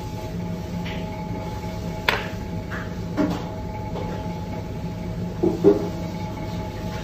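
A steady machine hum with a few fixed tones, over which a knife and hands knock on a plastic cutting board a handful of times: a sharp click about two seconds in, another knock a second later, and the loudest pair of knocks near the end.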